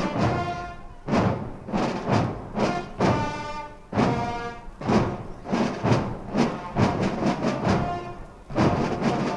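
A Swiss carnival Katzenmusik (Guggenmusik) band of brass and drums playing a march. It has held brass chords over a steady drum beat, about two beats a second.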